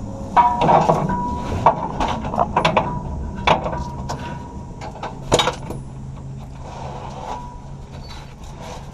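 Metal clanks and scraping from work on a steel bus-frame bracket, with several sharp knocks, one of the loudest about five seconds in, over a faint steady hum.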